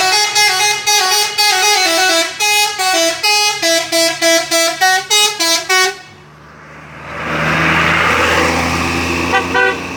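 A Trans Saba bus's telolet horn, a multi-trumpet musical air horn, playing a quick tune of stepped notes for about six seconds. After a short pause a louder rushing noise with a low engine hum builds, and two short toots sound near the end.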